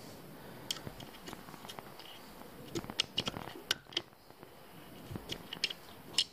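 Hex key working the clamp bolt of a mountain bike's gear shifter as it is tightened on the handlebar: a scatter of small, irregular clicks and taps, busiest about three seconds in and again near the end.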